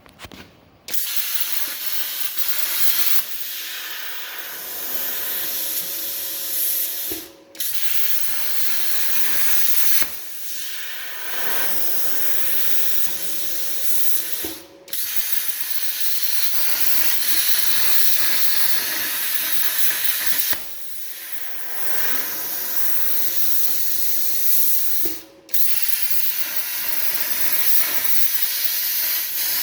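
Herocut Cut 55X plasma cutter's arc cutting steel on a CNC table: a loud, steady hiss that starts about a second in and breaks off briefly three times before starting again.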